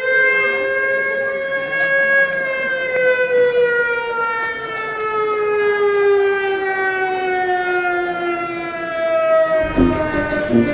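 A siren sounds one long, steady wail that slowly falls in pitch. Near the end, strummed guitar music starts up with a regular beat.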